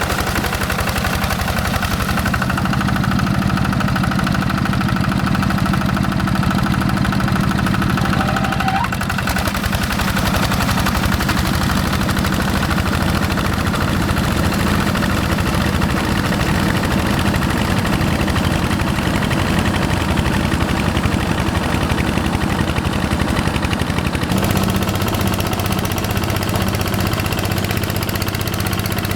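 Single-cylinder Yanmar diesel engine of a hand tractor running steadily, with an even rapid chugging. Its tone shifts about two seconds in and again near the end.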